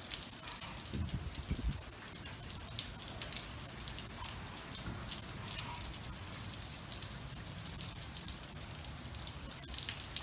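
Heavy tropical-storm rain falling steadily, with many small drop ticks, and a brief low rumble about a second in.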